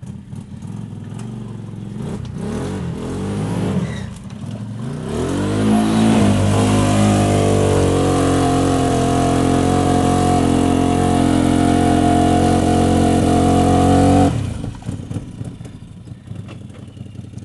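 Off-road vehicle's engine driving into a deep mud hole: revs climb about five seconds in and are held high and steady for some eight seconds, then drop off suddenly near the end. The vehicle is bogging down in the mud, stuck badly enough to need a winch.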